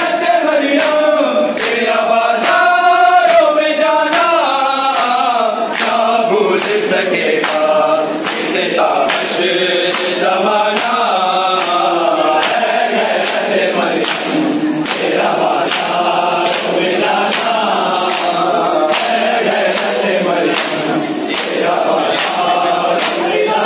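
Men chanting a nauha, a Shia Muharram lament, in unison, over a steady beat of open hands slapping bare chests in matam, roughly three slaps every two seconds.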